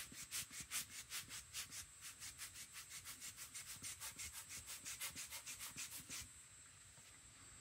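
Quick back-and-forth scrubbing on watercolour paper, about four or five strokes a second, stopping a little after six seconds in.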